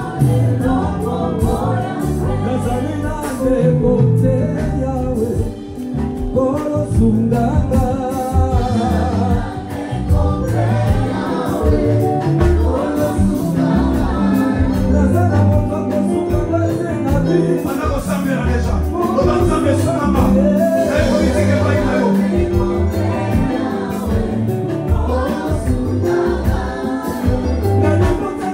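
Gospel music: a choir or group of voices singing over a steady, pulsing bass beat.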